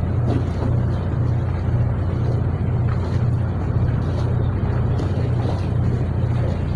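Fishing boat's engine running steadily: a low drone with a slight regular throb.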